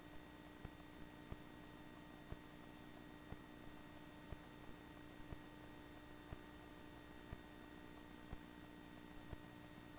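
Near silence: a faint steady electrical hum with soft ticks about once a second.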